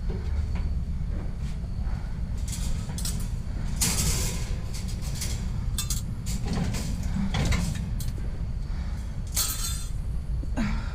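Hard objects clinking and clattering in irregular bursts as a pile of junk and scrap is rummaged through, over a steady low rumble.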